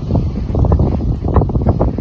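Strong wind buffeting the microphone: a loud, gusty rumble that surges unevenly.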